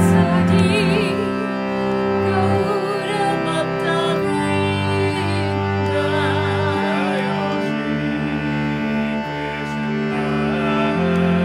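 Kirtan music: a harmonium holds sustained chords while a cello bows long low notes beneath. A woman sings over them in ornamented, wavering phrases that come and go.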